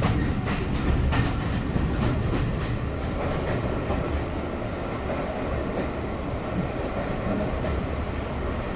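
Passenger train running along the track: a steady low rumble with wheels clicking over the rails, the clicks busiest in the first few seconds and then thinning out.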